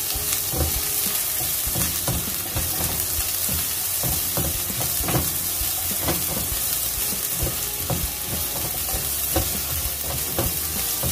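Sliced shallots, garlic, chillies and lemongrass sizzling in hot oil in a nonstick wok while a spatula stirs them, scraping and knocking against the pan over and over: aromatics being sautéed until fragrant.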